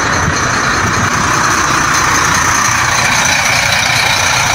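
Engine of a large Yutong coach bus running close by: a steady rumble with a hiss over it.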